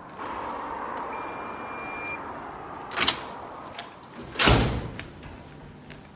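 Entrance door opened with a key card: a steady electronic tone from the reader for about a second, then a sharp click and, a second and a half later, a louder thump as the door opens and swings shut.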